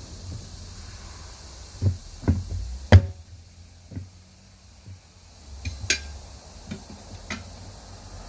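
Steel tire irons knocking and clanking against the steel rim of a 19.5-inch truck wheel as a tire bead is levered by hand. Several sharp knocks come about two to three seconds in, the loudest just before three seconds, then a few lighter, higher clinks toward the end.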